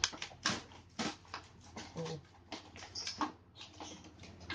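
Irregular clicks, taps and knocks of hard plastic parts being handled and pressed together while a drone part is fitted on, with a few brief low hums in between.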